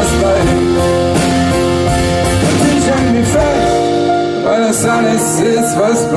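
Live pop-rock band playing an instrumental passage: strummed acoustic guitars over drums with regular cymbal strikes. About four seconds in, the bass and low end drop away and the sound thins out.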